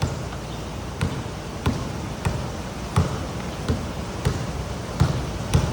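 Pouring rain, a steady hiss, with a dull thud about every two-thirds of a second.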